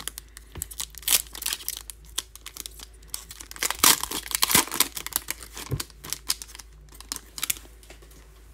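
Foil wrapper of a 2018-19 Select basketball card pack crinkling and tearing as it is opened by hand. The crackles are irregular and thin out near the end.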